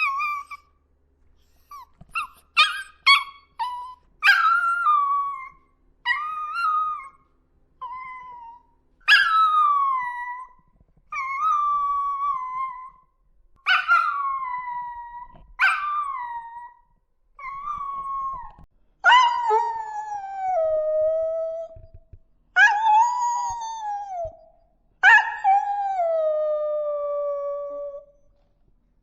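Puppies howling: a string of high, wavering cries that each fall in pitch, with a few short yips a few seconds in. The last three howls, from about two-thirds of the way through, are lower and longer.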